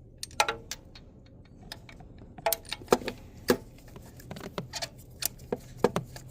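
Irregular metallic clicks and clinks of hand tools on metal, some ringing briefly, as a spark plug is worked loose and drawn out of the engine.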